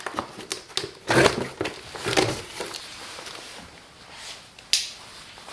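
A large cardboard shipping box being handled and opened: irregular scraping, rustling and crinkling of cardboard and packing, with a short sharp noise near the end.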